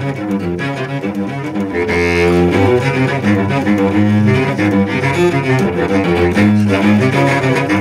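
Viola da gamba playing a bowed passage of shifting low notes, with a longer held note about two seconds in.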